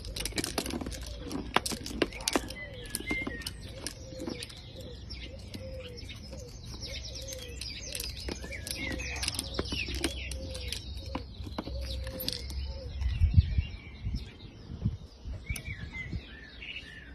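Birds chirping, over a low cooing call that repeats steadily. Sharp clicks and knocks come from a plastic treat-dispensing tumbler toy being pawed and rolled on brick pavers by a dachshund puppy, with a low thump about thirteen seconds in.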